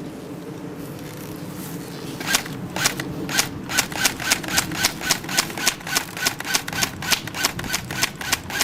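Airsoft gun firing a rapid string of shots, about four sharp cracks a second, starting some two seconds in.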